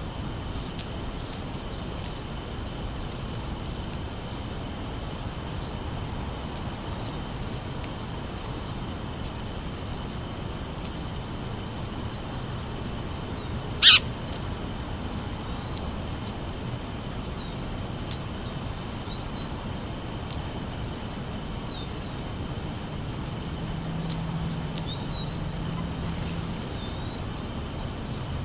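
Many small songbirds chirping at once, a dense run of short high notes that goes on throughout, over a thin steady high tone. A single sharp click about halfway through is the loudest sound.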